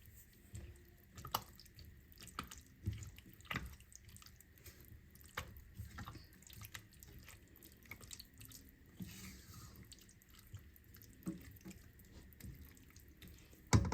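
Quiet, irregular clicks and light taps of kitchen utensils and cookware, with a louder clatter at the very end.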